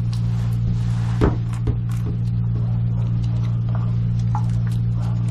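Steady low electrical hum from running equipment, with a couple of light knocks a little over a second in.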